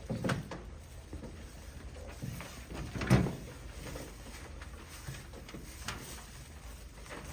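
Scattered light knocks and rustling, with one loud thump about three seconds in.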